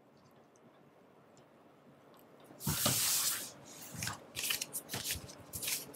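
Near silence, then about two and a half seconds in, a short hissing rush like a deck of cards being riffled, followed by irregular light clicks and rustles of the cards being handled.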